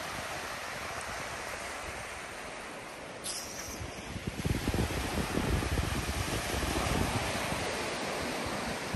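Surf washing in on a sandy beach, a steady hiss of breaking waves, with wind buffeting the microphone in low gusts from about five seconds in.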